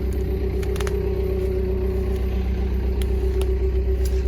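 Takeuchi TL140 skid steer running steadily, with a low engine drone, a steady whine above it and a few light knocks. The machine has dropped into a hole and is stuck.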